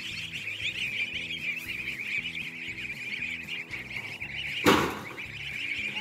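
A large flock of goslings peeping continuously in a dense high chatter. About four and a half seconds in, a single loud clatter, as of a wire-mesh carrying crate knocking against the metal pen.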